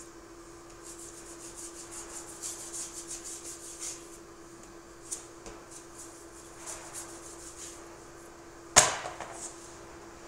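Body filler being worked with a spreader: a run of quick scraping strokes, then a few more after a pause. A single sharp knock about nine seconds in is the loudest sound, over a steady low hum.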